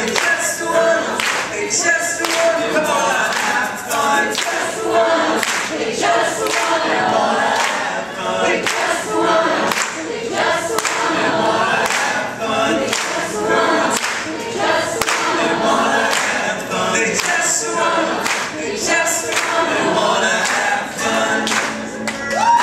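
Live acoustic band: several men singing together in harmony over strummed acoustic guitars and mandolin, with a steady rhythmic beat.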